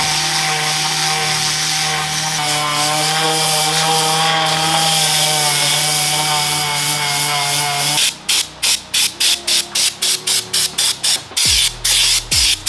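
An orbital sander running steadily on sheet metal, with a low hum and a wavering whine, until it stops about eight seconds in. An aerosol spray can then sprays in quick short bursts, about four a second, with longer bursts near the end.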